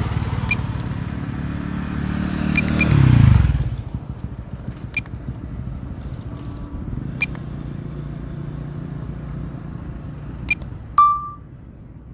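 A motor vehicle's engine passing close by, rising to its loudest about three seconds in and dropping away by four seconds, then a quieter steady engine hum with a few faint clicks. Near the end, a short beep as video recording is started on the drone's controller.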